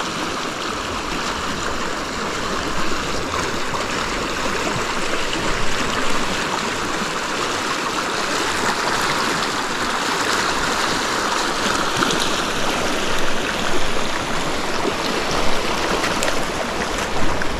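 Steady rush of a river's flowing current, an even wash of water noise without a break.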